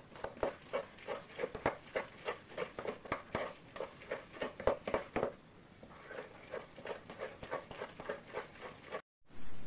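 A utensil stirring and mashing thick spinach, kale and cream cheese mixture in a stainless steel bowl, clinking and scraping against the metal about three times a second. The strokes grow softer about halfway through and stop abruptly near the end.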